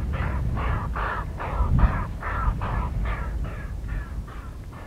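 Exhaust beats of an SY-class steam locomotive working a train, heard from afar as a steady, even chuff at about three beats a second that fades near the end.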